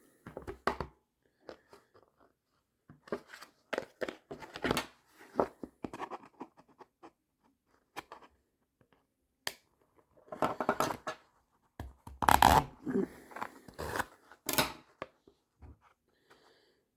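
Hand tool scraping and cutting at a hole in a radio carrying case, in irregular bursts of rasping strokes with pauses between, the heaviest working from about ten seconds in.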